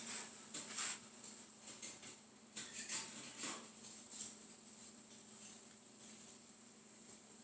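Light irregular rustling and scratching in short clusters, over a faint steady hum.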